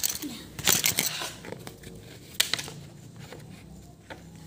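Hard plastic parts of a stacking shoe rack clicking and knocking as a red leg frame is fitted onto a white shelf panel: a cluster of clicks in the first second, one sharp knock about two and a half seconds in, then quieter handling.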